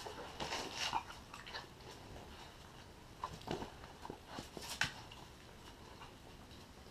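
English Mastiff puppy chewing and biting at sardines taken from a hand, faint, in a few short spells of small clicky mouth sounds.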